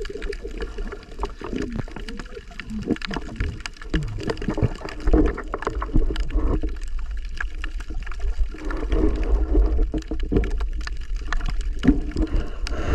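Muffled underwater noise picked up by a camera carried by a diver: water gurgling and sloshing over a steady low rumble, with many scattered sharp clicks and knocks.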